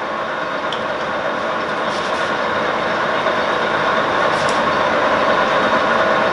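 LeBlond Regal engine lathe running under power with its spindle turning and the compound power feed engaged: a steady gear hum and whine, growing slightly louder, with a few faint clicks.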